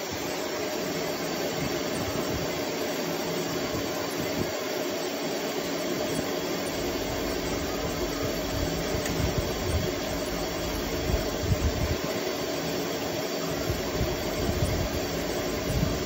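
Stainless-steel centrifugal humidifier running: a steady motor hum with even hiss as it throws out water mist, with irregular low rumbling underneath.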